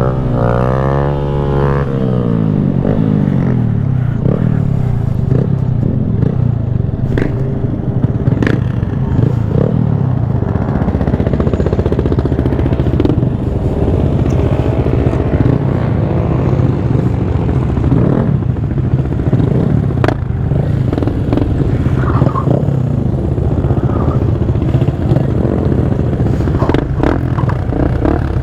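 Honda Grom's 125 cc single-cylinder engine running and revving as the bike is ridden, its pitch rising and falling again and again. The bike is brand new and only a couple of miles into its break-in. A few sharp clicks and some clatter come through over the engine.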